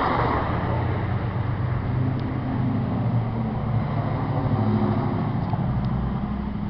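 A steady low engine drone with a noisy rush over it, like a motor vehicle running.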